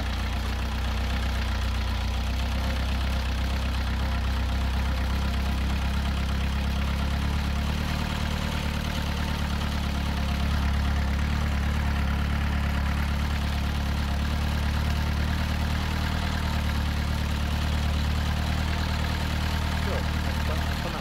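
Engine of a small handlebar-steered off-road vehicle running steadily while riding along a forest track, a constant low drone.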